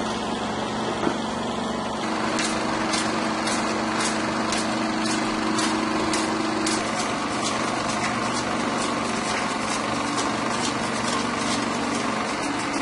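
Bell & Howell 1592 16mm sound film projector running, a steady mechanical whirr of motor and film transport, with a light regular ticking about three times a second from about two seconds in.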